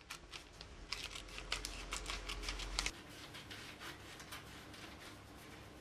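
Scissors cutting through newspaper: a quick run of sharp snipping clicks that thins out about three seconds in.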